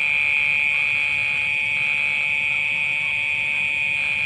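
Steady, high-pitched electrical buzz from a homemade electrofishing rig running while its two rods are held in the water.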